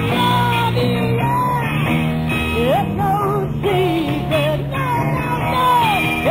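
Live 1960s rock band playing: electric guitars, bass and drums, with a lead line sliding and wavering in pitch above the band.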